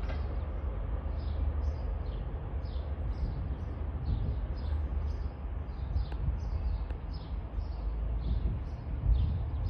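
Low steady rumble of a diesel train, with a bird chirping over it: short high falling chirps, about three a second.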